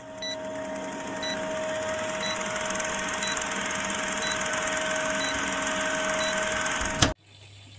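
Old-film countdown sound effect: the steady whirr and fast ticking of a film projector, with a short high beep about once a second, ending in a sharp click about seven seconds in.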